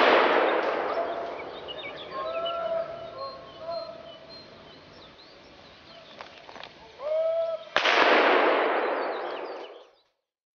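Two rifle shots, one right at the start and one about eight seconds in, each with an echo that rolls away over about two seconds.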